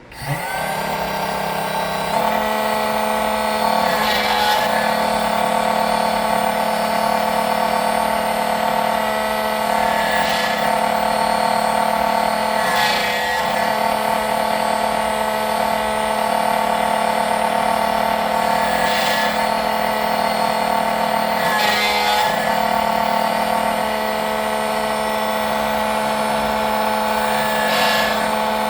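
SEC-E9 key cutting machine's motor starting up and running steadily with a whine while its cutter cuts a Tibbe car key, with brief harsher passes every few seconds.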